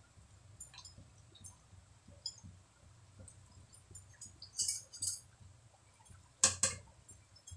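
Hot oil crackling in a kadai as kakara pitha deep-fry, with a metal slotted spatula clinking against the pan a few times, the loudest clink near the end.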